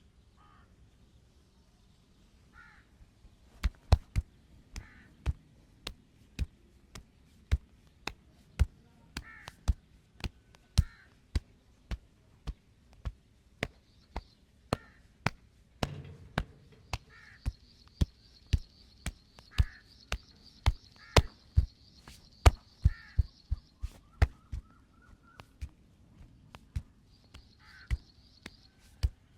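Fast, sharp hand strikes of a percussive head and back massage, smacking on the body at roughly two a second from a few seconds in. Crows caw in the background.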